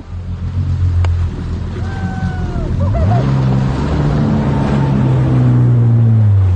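Jet ski engine running over splashing water and wind noise; about three seconds in it revs up and holds a steady higher pitch.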